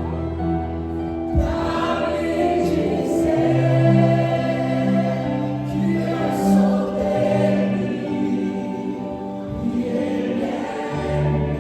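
Slow Christian worship music with a choir of voices singing long, held notes over sustained chords.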